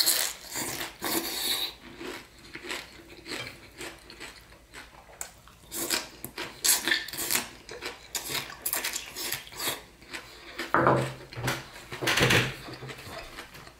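Eating at the table: irregular clicks and scrapes of utensils on a plate, with chewing of crispy pan-fried rice noodles. The clicks come louder about eleven and twelve seconds in.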